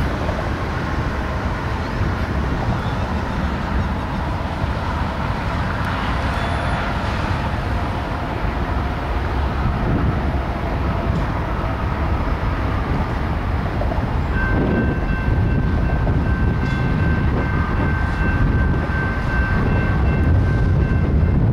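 Diesel freight locomotives rumbling as the train approaches, the sound building slightly. About two-thirds of the way in, a steady high-pitched squeal joins in and holds.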